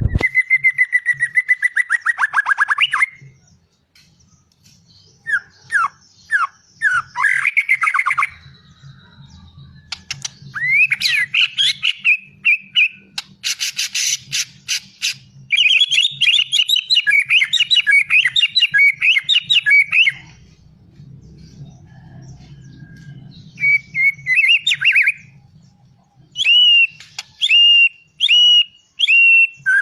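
Murai songbird singing a varied song of clear whistles, pitch glides and fast trills, in loud bursts separated by short pauses.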